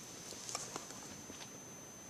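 Faint handling noise from a phone being moved about: a few soft clicks and taps over a thin, steady high whine.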